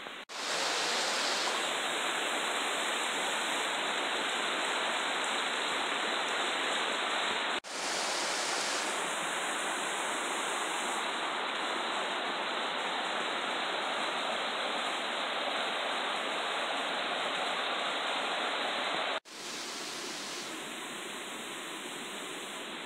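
Steady rushing of a shallow, rocky forest stream, with two abrupt breaks where the recording cuts from one clip to the next.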